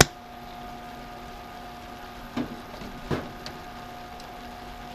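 A plastic sauce bottle is handled over a cooking pan. There is a sharp click at the start, then two soft knocks about two and three seconds in, over a steady hum.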